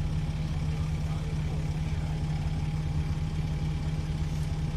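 Dennis Trident 2 double-decker bus's diesel engine idling steadily, with a thin, steady whine above the engine note from the turbocharger.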